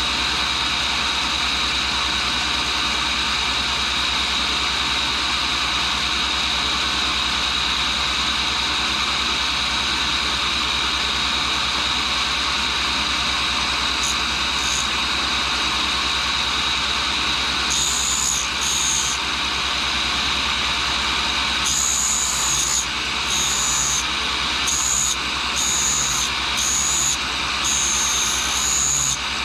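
1942 Cincinnati tool and cutter grinder running steadily, its motor humming and its cup wheel whining at a constant pitch as it grinds a carbide-tipped boring cutter. Short passes of grinding hiss come and go from about halfway through, more often near the end, as the cutter is worked against the wheel.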